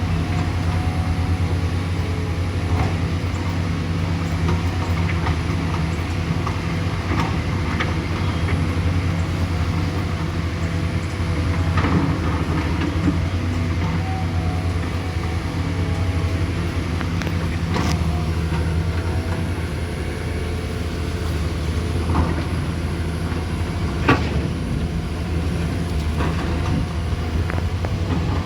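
A large engine running steadily at an unchanging pitch, with a few sharp clicks and knocks over it.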